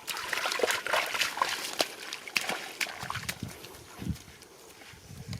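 Splashing and sloshing in shallow muddy water, busy for the first couple of seconds, then a few dull thuds as it quietens.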